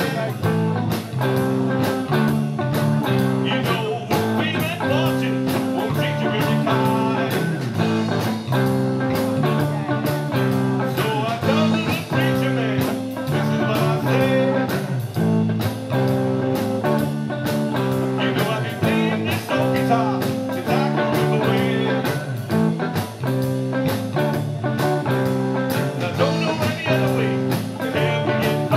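Live blues-rock trio playing: distorted electric guitar and electric bass over a drum kit keeping a steady beat.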